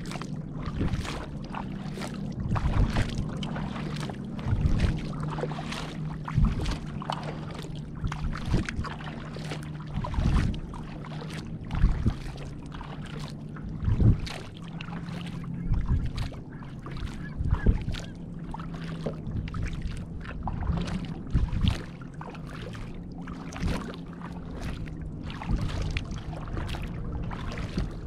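Double-bladed kayak paddle dipping and pulling through the water, one splashing stroke every second or two, over a steady low hum.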